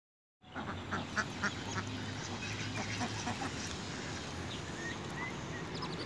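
A flock of mallards and white domestic ducks quacking in short calls, several of them louder in the first second and a half, over a steady low hum. A few short high chirps come about five seconds in.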